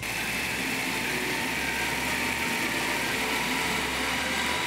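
Food processor motor switching on and running steadily, blending ground milk biscuits with margarine into a crust mixture.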